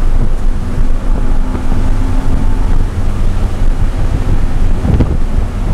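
BMW E90 330i's straight-six engine pulling hard at about 5,000 rpm under acceleration, heard from inside the cabin mixed with heavy wind and road noise.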